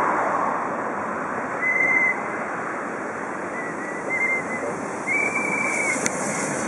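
DR class 52 steam locomotive approaching at low speed: a steady rushing hiss of steam and running gear, broken by several short high-pitched squeals, and a sharp click near the end.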